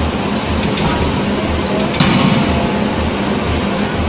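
Anyang C92K 31.5 kJ CNC hydraulic die forging hammer and forge-shop machinery running: steady mechanical noise with a low pulsing about twice a second, and a single sharp impact about halfway through as the hammer strikes the hot eye-bolt blank.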